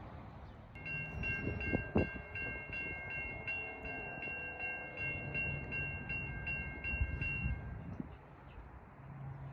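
Railroad bell ringing in a steady rhythm, a little over two strikes a second, stopping about seven and a half seconds in, over a low rumble.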